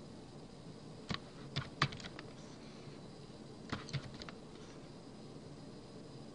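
A few light clicks of computer keys and mouse in two small groups, about a second in and again around four seconds in, over a faint steady background hiss.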